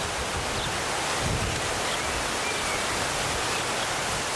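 Steady rushing outdoor noise, with some low rumble about a second in and a few faint high chirps.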